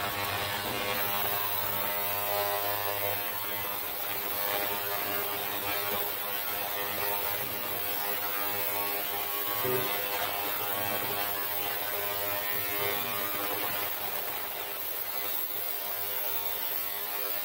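Steady electrical hum with many overtones from a running hot-plate magnetic stirrer, with a brief knock about ten seconds in.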